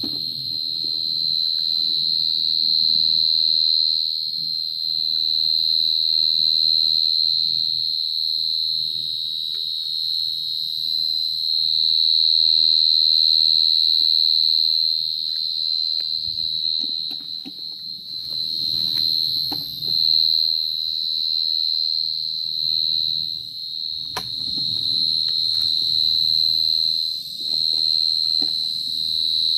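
A burrowing field cricket (dế cơm) calling close by: a loud, unbroken high-pitched trill that wavers slightly in strength, the song a male gives at the mouth of its burrow at night. Softer rustling and a few sharp clicks sound underneath.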